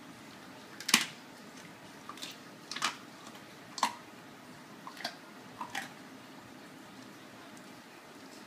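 A German shepherd chewing raw chicken, bones included, with sharp irregular crunches and cracks several times over the first six seconds and then stopping.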